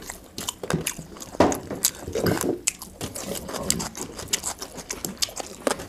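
Two people eating rice and curry with their hands from steel plates: fingers mixing wet rice on the metal, and chewing and lip smacks, heard as many short irregular clicks.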